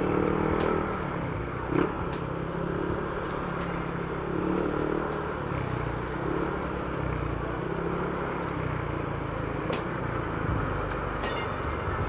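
Yamaha Aerox 155 scooter's engine running steadily at riding speed, with passing traffic around it and little wind noise. A sharp click about two seconds in.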